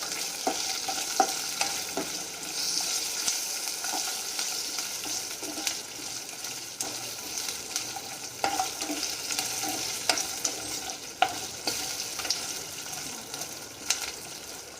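Whole spices and green chillies sizzling in hot oil in a pan while being stirred, with a steady frying hiss and irregular clicks and scrapes of the spatula against the pan.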